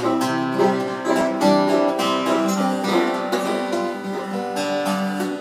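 Acoustic guitar being played in a steady rhythm of picked notes and chords.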